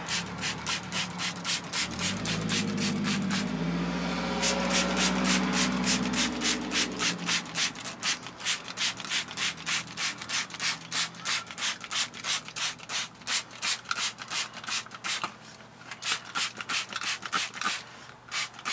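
Stiff nylon brush scrubbing a wet rubber tire sidewall in quick back-and-forth strokes, about four or five a second, with a couple of short pauses near the end. A low hum sits under the strokes from about two to seven seconds in.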